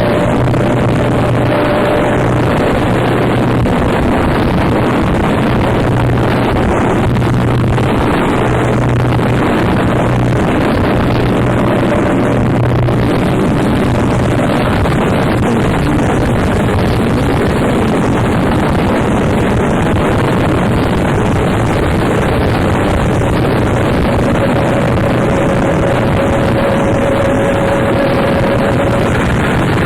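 Harsh noise music: a loud, unbroken wall of distorted noise. Under it runs a low droning hum that fades out about halfway through. A thin held tone sounds at the start and again near the end.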